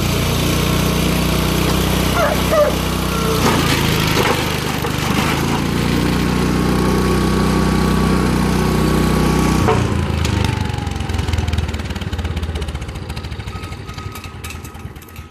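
Garden tractor's small gasoline engine running steadily, with a few knocks in the first few seconds. About ten seconds in, the engine note drops away and the sound fades.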